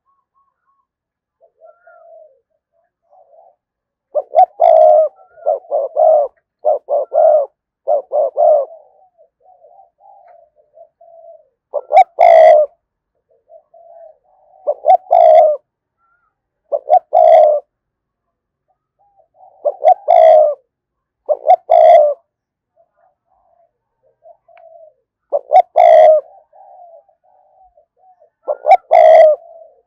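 Spotted dove cooing, the repeated 'gù' calls of a decoy male used to lure wild doves. A quick run of about five coos comes about four seconds in, then loud coos in ones and twos every two to three seconds, with softer coos between them.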